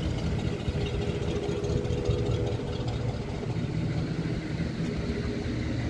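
A motor running steadily: a low rumble with a faint even hum above it.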